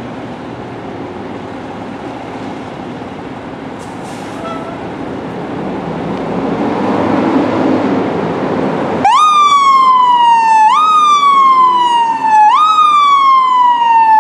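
Fire engine's diesel engine running and growing louder as the rig pulls out. About nine seconds in, its electronic siren switches on abruptly: each sweep rises quickly and falls slowly, three sweeps about every 1.7 seconds.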